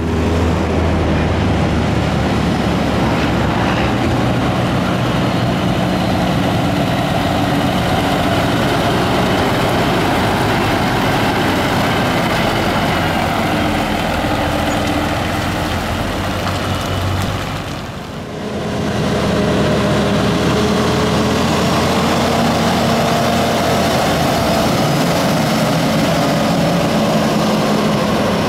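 Brockway 758 garbage truck's diesel engine running as the truck drives by and pulls away, a heavy, steady engine note that dips briefly about two-thirds of the way through before picking up again.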